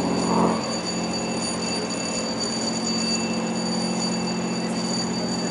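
Steady drone of the fishing vessel Northwestern's diesel engines running at idle, an even hum made of several low tones. A louder sound over it stops about half a second in.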